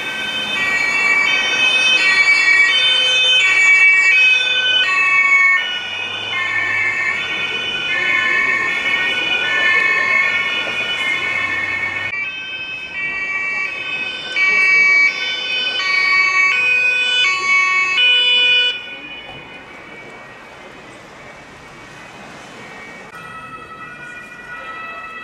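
German two-tone emergency-vehicle sirens (Martinshorn), each alternating between a high and a low note about every half second. A loud one breaks off abruptly halfway through into another, which cuts off sharply about three-quarters of the way in. A fainter siren starts up near the end.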